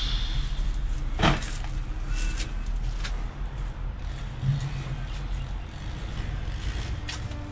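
Rubbish being tossed into a steel skip bin: one sharp clattering bang about a second in and a few lighter knocks after it, over a steady low vehicle engine rumble.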